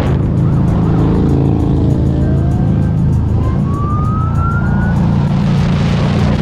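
Cruiser motorcycle engine running steadily at road speed. Over it, a police siren rises in pitch once, from about two to five seconds in.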